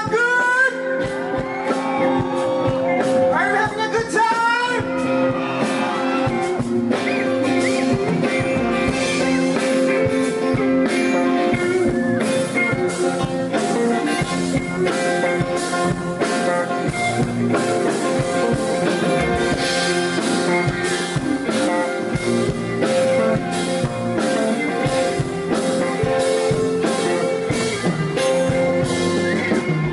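A live band playing a song with singing, guitar and a steady drum beat.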